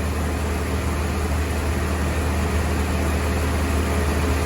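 1996 General Motors 2.4L four-cylinder engine idling steadily with the air-conditioning compressor engaged and running.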